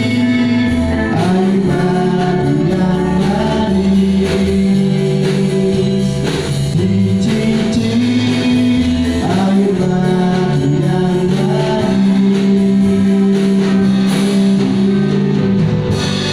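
Gospel praise-and-worship song: sung vocals over a band with guitar and a steady beat.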